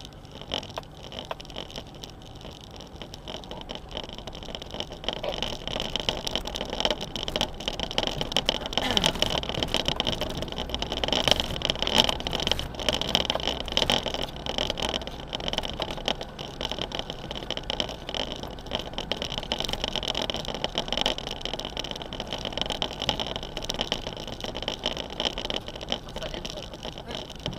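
Off-road 4x4 driving on a rough gravel track: the engine running under a steady drone of tyres on loose stones, with frequent knocks and crunches from the bumpy ground. It grows louder over the first ten seconds or so, then stays steady.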